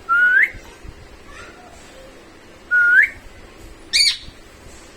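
A pet parrot whistling: two short rising whistles a couple of seconds apart, then a brief harsh call near the end.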